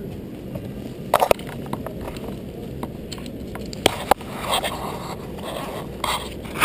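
Ducati GT1000's air-cooled L-twin engine idling as a steady low rumble. Sharp clicks and scraping noises close to the microphone come about a second in, twice around four seconds in, and again near the end.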